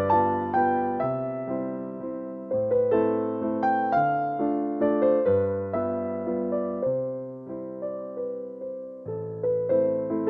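Background music: a gentle electric piano melody over low bass notes, each note struck and fading.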